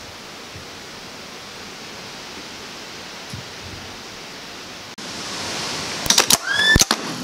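Steady hiss, then about six seconds in the 24-volt dual-starter switch's electromechanical relays clack in and the Gardner engine's starter motor spins briefly with a short rising whine. The relays pulling in supply the main current to the starter.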